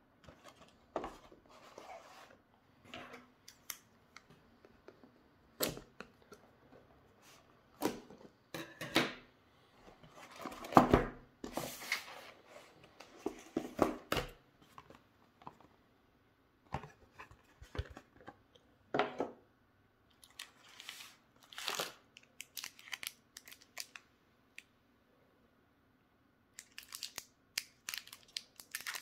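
Cardboard gift box being handled and its lid pulled off, in a series of separate scrapes, rustles and tearing sounds, the loudest cluster a little before halfway. Near the end, the foil wrappers of mini Toblerone chocolate bars crinkle as one is picked out.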